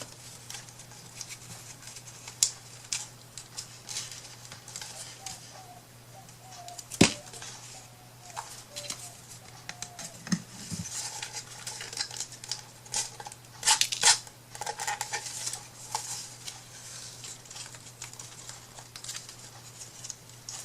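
Scattered small clicks, taps and rustles of craft pieces being handled and fiddled with on a work surface, with one sharp knock about seven seconds in and a flurry of louder taps a little past the middle. A low steady hum runs underneath.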